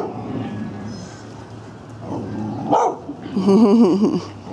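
Large dogs vocalizing in play: one bark about two-thirds of the way in, then a wavering, whining call lasting about a second near the end.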